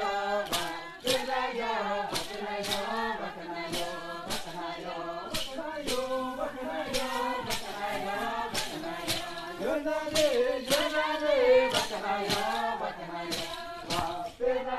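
Bora dancers singing a chant together, several voices on held, sliding notes, over a steady thumped beat about twice a second.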